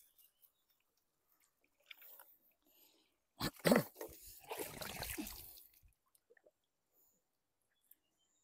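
Catch being shaken out of a wet mesh trap into a plastic basin: a couple of knocks about three and a half seconds in, then a second or two of rustling and splashing.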